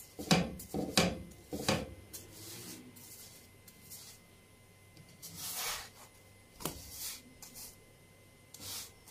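Slotted spatula rubbing and pressing a pita bread against a frying pan: three quick scrapes in the first two seconds, a longer scrape about five and a half seconds in, then a sharp tap near seven seconds and a softer one near the end.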